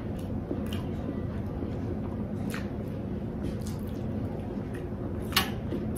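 Grilled onions handled with the fingers off a glass plate and laid on a lettuce wrap: a few faint wet squishes and clicks, the sharpest about five seconds in, over a steady low room hum.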